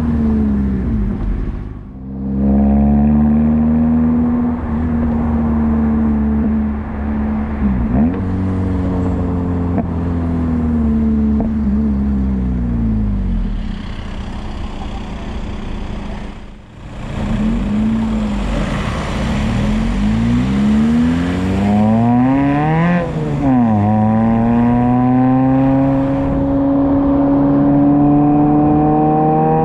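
Suzuki Ignis Sport's 1.5-litre four-cylinder through a 2.5-inch stainless steel cat-back exhaust, heard from the rear of the car under way: revs climb and fall through several gear changes. There is a brief drop in level about two seconds in and another near the middle, and a quick rev down and back up about three-quarters of the way through.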